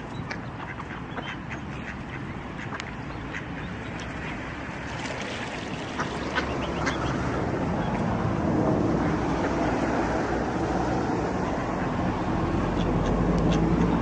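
Mallard ducks quacking, many short calls in the first half. A low rushing noise swells from about halfway and becomes the loudest sound near the end.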